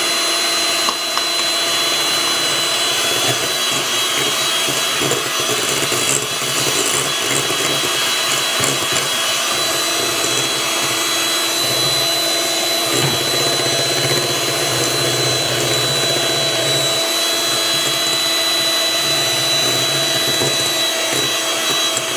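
Electric hand mixer running steadily with a constant motor whine, its beaters whipping eggs into a butter-and-sugar cake batter in a glass bowl.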